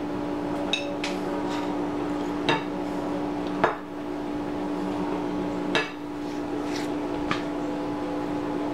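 Metal spoon clinking and scraping against a plate and a bowl while cooked rice is scooped, about seven separate sharp clinks with the loudest about three and a half seconds in, over a steady low hum.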